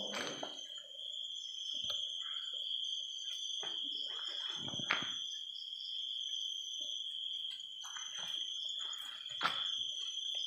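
Night insects, likely crickets, chirring in one steady unbroken high-pitched trill. Short scattered knocks and scuffs sound over it a few times.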